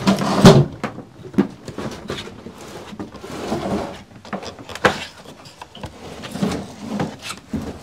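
Wooden kitchen cabinets being handled: a heavy wooden thump about half a second in, then scraping as a cabinet box is slid along a pickup's tailgate, with scattered knocks and a sharp one near the middle.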